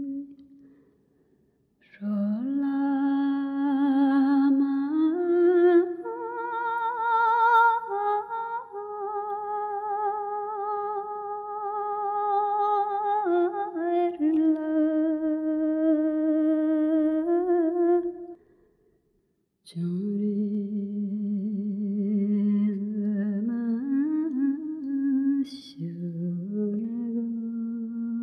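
A solo voice singing a slow melody in long held notes with vibrato, the pitch stepping up and down between notes, with two short pauses: one near the start and one about two-thirds of the way through.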